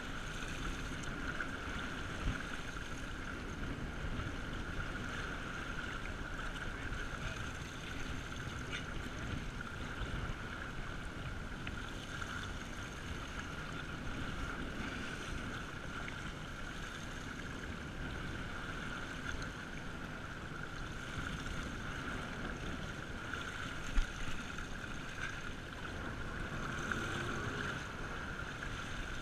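Water rushing and splashing right at the waterline alongside a sportfishing boat running slowly ahead, with the steady hum of its engine, as a blue marlin is held by the bill so water flows through its gills. A single knock about 24 seconds in.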